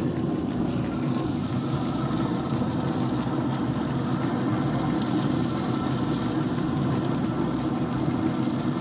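Traeger pellet grill's fan running with a steady, even hum.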